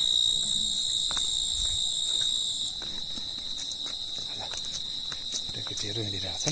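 Insects shrilling in a steady, high-pitched drone. A second, higher strand of the chorus drops out a little under three seconds in.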